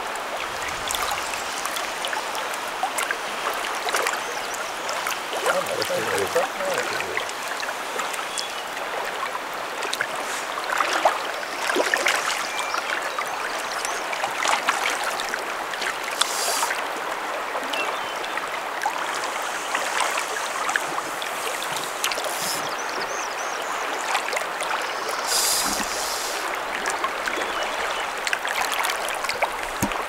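Shallow river current running steadily through a riffle, with a few brief louder splashes, one of them a hooked fish breaking the surface.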